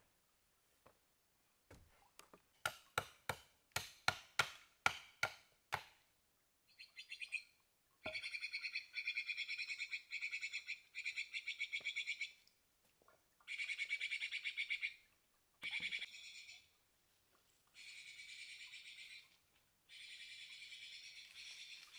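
About eight sharp knocks come a few a second in the first quarter. Then a rapid, high-pitched trilling call sounds in repeated bursts of one to four seconds each, with short breaks between them.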